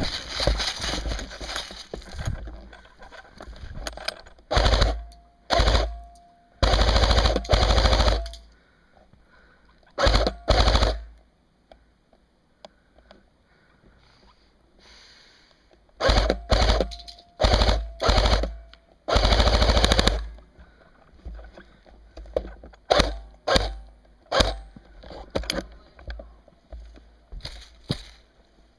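Airsoft electric rifles (G&G Combat Machine AEGs) firing on full auto in repeated bursts, each a rapid string of shots over the whine of the gearbox motor. Most bursts last about half a second to a second and a half, and the last ones are short.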